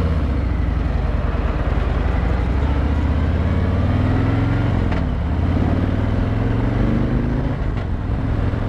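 Harley-Davidson Street Glide's V-twin engine accelerating away from a stop, its pitch climbing, dropping at a gear change about five seconds in, then climbing again before another shift near the end.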